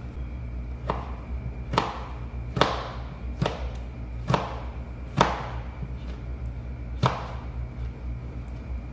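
Kitchen knife dicing a tomato on a plastic cutting board: about seven sharp knocks of the blade hitting the board, evenly spaced a little under a second apart, with a longer gap before the last one.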